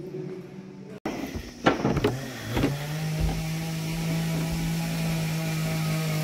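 A few sharp knocks, then a steady electric motor hum that settles in about three seconds in.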